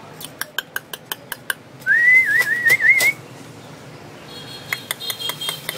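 A person whistling: a short, warbling whistle that wavers up and down for about a second, the loudest sound here, preceded by a quick run of sharp clicks and followed by fainter high tones and a few more clicks.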